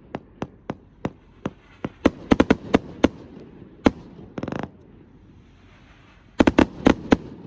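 Astroboy consumer fireworks going off in a finale: a string of sharp bangs, one every few tenths of a second, bunching into quick volleys. There is a short hiss about four and a half seconds in, and a fast cluster of bangs near the end.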